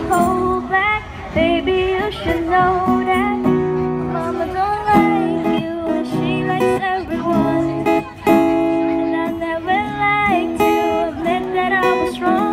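Live acoustic band music: a woman sings a melody into a microphone over strummed acoustic guitars.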